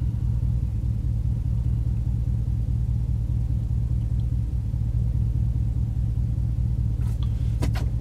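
Ram 1500 Rebel's Hemi V8 idling steadily, a low even hum heard inside the cab. A couple of faint clicks near the end.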